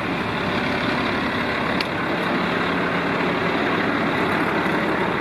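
Fire truck's engine idling steadily with the fire pump still engaged, with a single short click about two seconds in.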